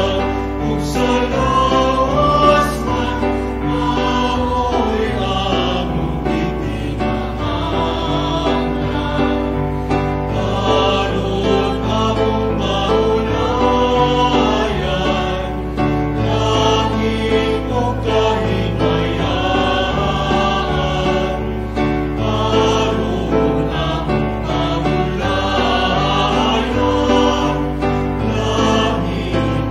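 A choir singing a religious hymn with long held notes, the music continuous and steady in level.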